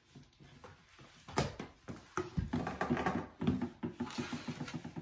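Rummaging through slime ingredients: plastic containers and packets clattering and rustling in a busy run of short knocks that starts about a second in.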